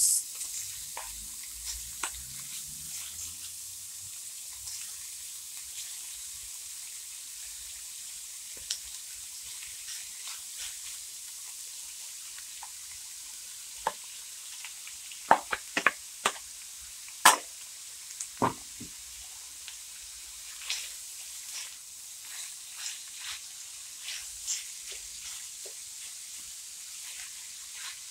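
Minced meat sizzling steadily in hot ghee in a nonstick wok as it is tipped in and stirred, with a few sharp knocks of the container or spatula against the pan about halfway through and lighter scraping ticks after them.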